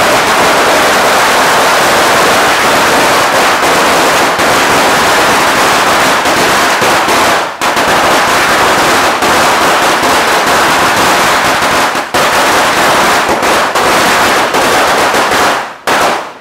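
A Judas belt, a long string of some 2000 firecrackers, going off in a rapid, unbroken barrage of loud bangs. The barrage falters briefly twice and stops with a few last pops just before the end.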